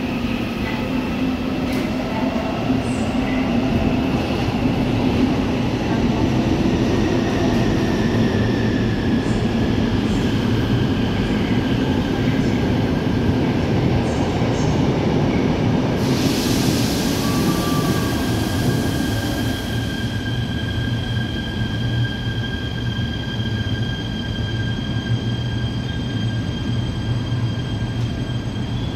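Seoul Subway Line 4 electric train pulling into the station and slowing to a stop: a steady rumble of wheels on rail, with whines that fall in pitch as it slows. A hiss lasts a few seconds about halfway through.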